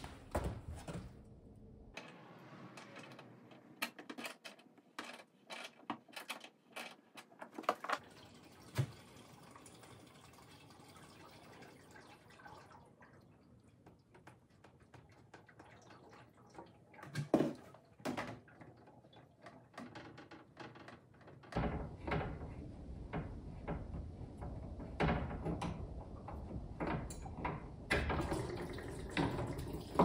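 Scattered metal clicks and knocks from a wrench loosening the tankless water heater's outlet hose fitting, then, for the last third, water dripping and trickling from the disconnected line into a plastic tub as the heater drains.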